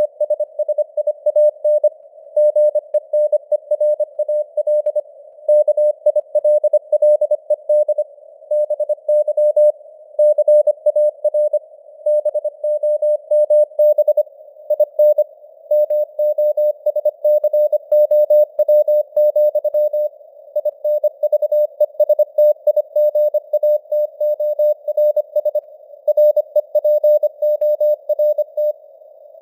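Morse code news text sent at 25 words per minute as a single mid-pitched tone keyed in rapid dots and dashes, over a faint hiss of simulated radio band noise. The signal strength rises and falls slightly with simulated QSB fading.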